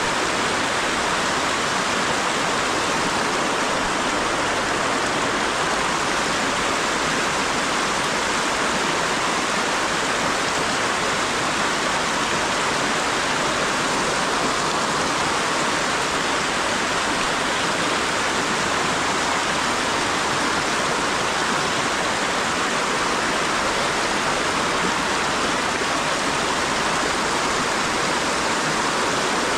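Water of a shallow stream rushing over rocks, a steady even rush.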